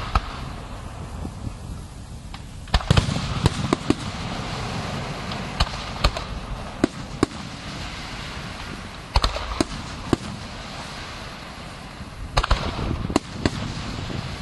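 Fireworks display: aerial shells bursting with sharp bangs in clusters every few seconds, over a steady crackle and hiss of sparkling effects.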